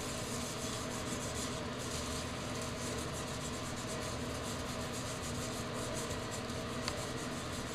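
Cloth rag rubbing wood stain onto a bare wooden board, a steady scrubbing, with one small click near the end.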